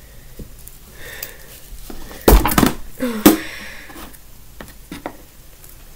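A small plastic slime container being pulled open, with a loud sharp snap about two seconds in and a second sharp knock about a second later, amid light plastic handling sounds.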